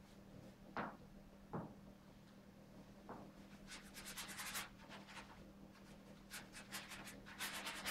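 Paintbrush scrubbing paint onto a canvas in quick, short scratchy strokes from about halfway in, after a few soft knocks in the first three seconds; a faint steady hum underneath.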